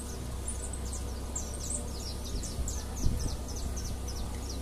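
Small birds chirping in quick, high, falling notes, over a steady low rumble, with one dull bump about three seconds in.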